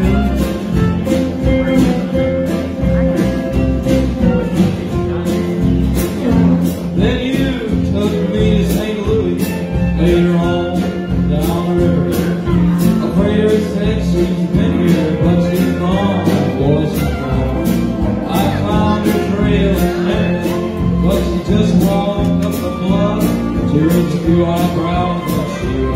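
Live country band playing an instrumental break: strummed acoustic guitar, electric bass and pedal steel guitar over a steady beat.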